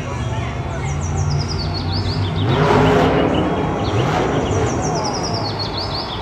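Monster truck engine revving hard, its pitch surging up and down several times and loudest around the middle, over arena crowd noise. Short high bird chirps sit on top near the start and again near the end.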